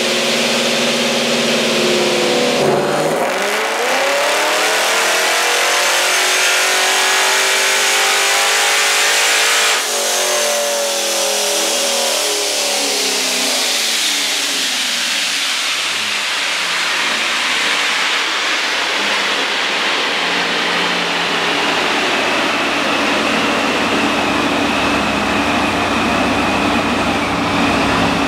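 ProCharged LSX 376-B15 V8 in a C6 Corvette making a wide-open-throttle pull on a chassis dyno: the engine runs at a steady low speed, then about three seconds in its pitch climbs for some seven seconds, with a high supercharger whine rising alongside. Around ten seconds in the throttle closes abruptly and the engine and whine wind down, settling into a steady run as the rollers slow.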